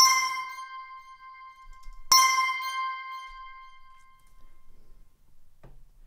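Synthesized bell-tone notification sound played back twice, about two seconds apart. Each strike is a bright chime that rings out and fades away.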